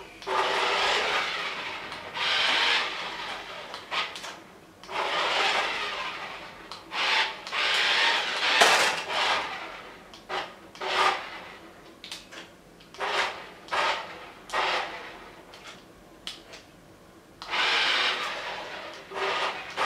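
Small radio-controlled toy vehicle driving in short stop-start bursts, giving a scraping, grinding noise each time it moves.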